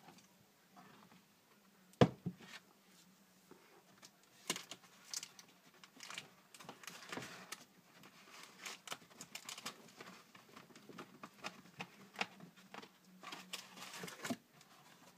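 Close handling noise: one sharp knock about two seconds in, then irregular clicks, taps and cloth rustling as a sleeved arm brushes past the microphone and works in a glass enclosure.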